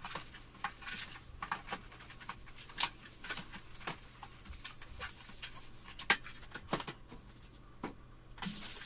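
Cloth wiping and rubbing over a plastic LCD monitor's screen and case, with scattered light clicks and knocks as the monitor is handled and turned over. The sharpest knocks come about 3 and 6 seconds in, and there is a dense spell of rubbing near the end.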